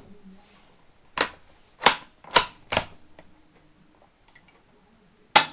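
Bolt of a Marlin XT22TR bolt-action .22 rifle worked open and closed in four quick, sharp metallic clicks, then, near the end, the rifle dry-fired with one louder click of the trigger.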